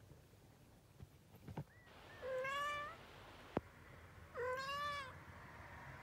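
Three-week-old kitten mewing twice, two high, thin cries of under a second each. A single sharp click comes between them.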